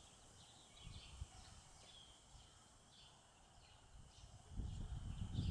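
Faint outdoor ambience with scattered short bird chirps. Wind rumbles on the microphone in the last second.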